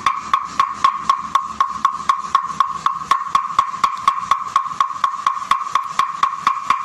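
Rapid, even wood-block-like ticking, about four strokes a second, over a steady high tone: an edited-in percussive track rather than live sound.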